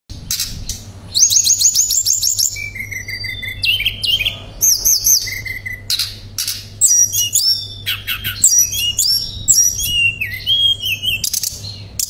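Male blue flycatcher (tledekan pring) singing a varied song: a rapid high rolling trill, then clear whistled phrases and slurred notes, one after another with no pause, over a faint low hum.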